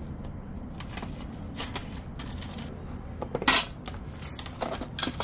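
Small metal clicks and clinks as rotary-tool accessory bits and a collet wrench are handled, with a sharper knock about three and a half seconds in.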